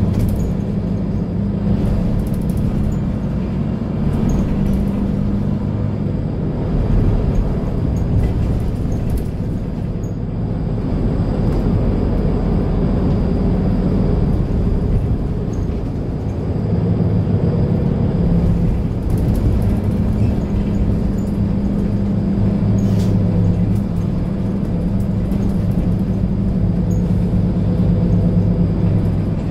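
Mercedes-Benz Citaro C2 Ü Hybrid bus idling at a stop, heard from inside the passenger cabin: a steady low engine drone that eases for a few seconds in the middle and then comes back.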